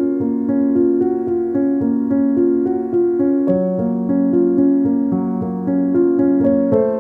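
Background music played on a keyboard instrument: held chords that change about every half second, with a light steady pulse.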